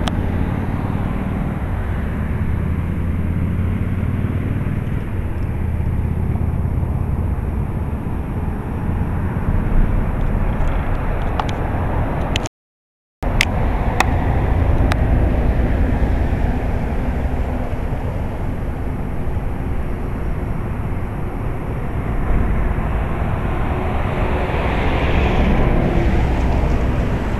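Steady outdoor background rumble and hiss, heaviest in the low range, with a brief complete dropout about halfway through and a hiss that swells and fades near the end.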